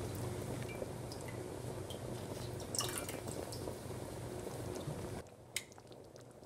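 Thick cheese soup simmering in a pot: faint bubbling and plopping over a low steady hum. About five seconds in it cuts to near silence, with one click after.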